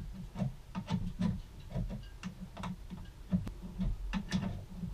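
Irregular light clicks, about two a second, with soft handling sounds between them, as a long drain bolt is unscrewed by hand from the bottom of a marine diesel's raw-water sea strainer.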